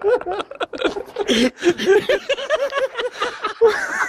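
Young men laughing and chuckling, with snatches of unclear talk mixed in.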